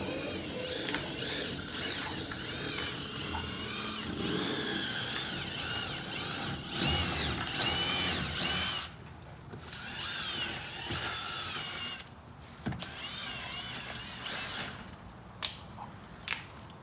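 Cordless drill driving screws into a camera mount, its motor whine rising and falling in several short runs with pauses and clicks between.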